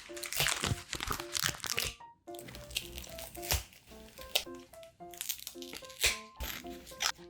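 Paper crinkling and rustling in quick, irregular bursts as paper cutouts are handled, over light background music with short plucked notes.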